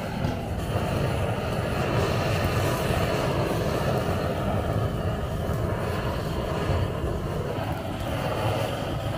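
Long-nozzle handheld gas torch burning steadily, its flame held on a whole rockfish on a wire grill grate.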